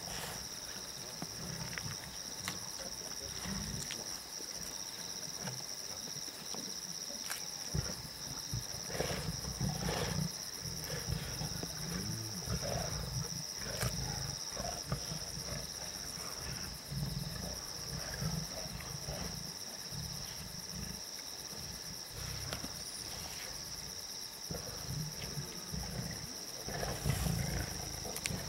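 Lions growling and snarling in low rumbles, on and off, while feeding together at a kill, with scattered sharp clicks.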